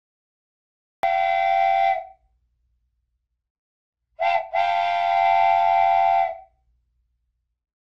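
Edited-in comedy sound effects: a steady whistle-like toot about a second long, then a short toot followed by a longer held one of nearly two seconds.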